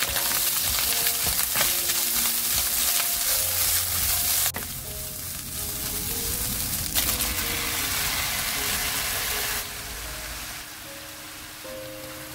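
Diced Spam and potato sizzling as they are stir-fried in a nonstick wok, frying in the Spam's own fat, stirred with a wooden spatula. The sizzle is loudest for the first four seconds or so, then drops suddenly and grows thinner; soft background music plays underneath.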